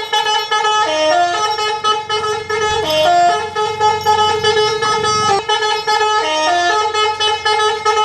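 Telolet 'basuri' horn on a toy ride-on truck playing a looping tune: long held notes broken by short steps down and up, the phrase coming round about every three seconds.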